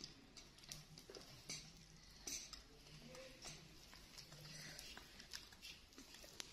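Faint sipping through drinking straws and small clicks of plastic drink bottles being handled, a scattering of soft ticks over near silence.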